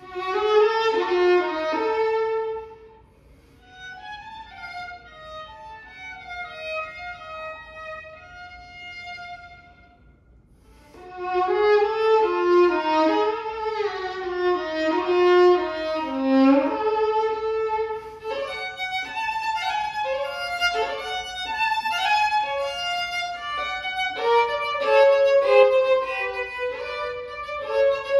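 Solo violin playing a slow, expressive melody. A loud phrase opens, a softer high passage follows, and it swells again about eleven seconds in, turning busier with quick short notes in the second half.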